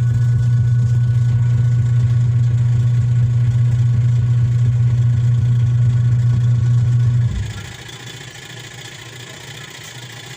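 Wash motor of a Hanabishi 6.8 kg twin-tub washing machine humming steadily as it turns the wash tub forward, then cutting out about seven seconds in. The stop is the timer's pause in its forward-and-reverse cycle.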